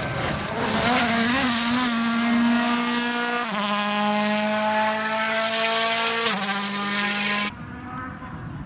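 Turbocharged four-cylinder rally car engine held at high revs at full throttle, its pitch stepping abruptly twice. The engine sound cuts off sharply near the end, leaving quieter open-air background.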